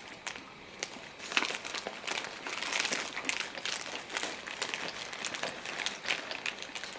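Plastic packaging crinkling and rustling in irregular bursts, with small clicks, as toiletries are handled and packed.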